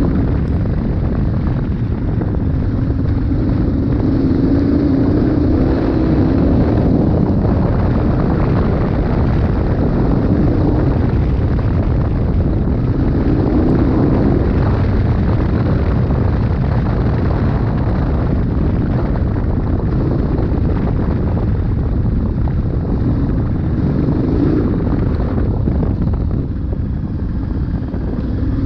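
KTM 1290 Super Adventure R's V-twin engine running under way on a gravel road, with a constant rush of wind and tyre noise. The engine note swells and rises in pitch a few times as the bike accelerates.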